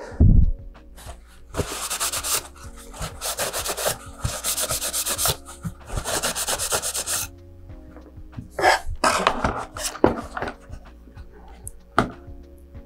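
Gloved hands wiped briskly with a cloth: several seconds of quick rubbing strokes, after a low thump about at the start. Then a few knocks and handling noises, and a sharp click near the end, over soft background music.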